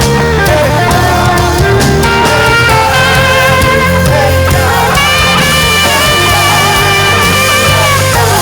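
Live gospel worship music: a saxophone plays a melody over a backing band, with a long note held from about halfway through.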